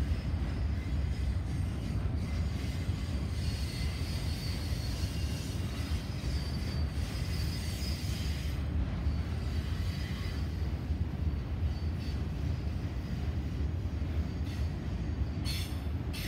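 Autorack freight cars rolling past, a steady low rumble of steel wheels on rail, with faint high-pitched wheel squeal coming and going through the middle.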